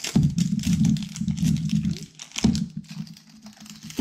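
Plastic wrapping on an L.O.L. Surprise toy ball crinkling and rustling as it is peeled off by hand, with a low rubbing rumble of handling. It comes in two stretches with a short pause about two seconds in.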